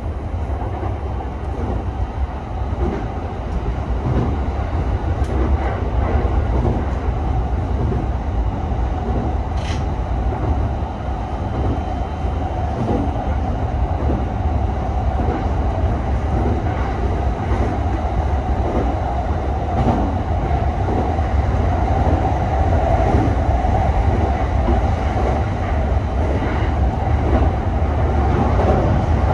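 JR Yokosuka Line electric commuter train running steadily along the line, heard from inside the front car behind the cab. There is a continuous low rumble of wheels on rail, a steady hum, and scattered faint rail clicks.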